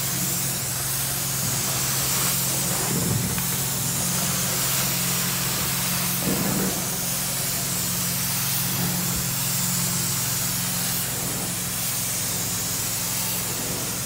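Carpet-cleaning extraction wand spraying hot water into the carpet and sucking it back up: a steady spray hiss over the constant hum of the extraction machine, swelling briefly a couple of times as the wand is pushed and pulled.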